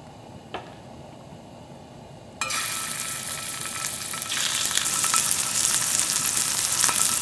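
Two pieces of raw chicken oyster meat go into hot sesame oil in a stainless steel frying pan and start sizzling suddenly a little over two seconds in. The sizzle gets louder about two seconds later when the second piece goes in.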